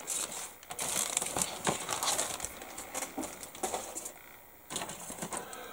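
Clear plastic bag of model-kit sprues crinkling and rustling as it is handled, in quick crackles that thin out about four seconds in.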